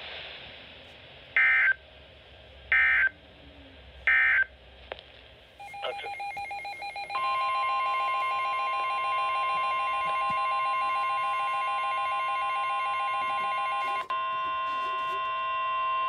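NOAA Weather Radio alert signalling through a Midland weather alert radio's speaker. First come three short digital SAME data bursts about a second and a half apart, marking the end of the previous message. Then, from about five and a half seconds in, pulsing alert tones and a steady, shrill warning alarm tone announce a new warning.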